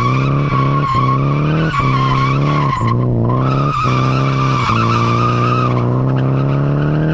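Nissan S13's SR20 four-cylinder engine held at high, steady revs with brief dips in pitch several times, while the tyres squeal steadily through a drift; the squeal breaks off for a moment about three seconds in.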